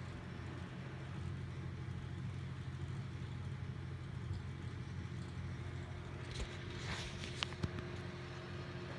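A sleeping cat snoring, a low, steady hum. A few sharp clicks or rustles come between about six and eight seconds in.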